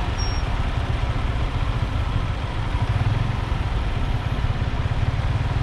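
Motorcycle engine idling steadily with a low rumble while stopped at a traffic light, heard through the built-in microphone of a helmet-mounted action camera along with street noise.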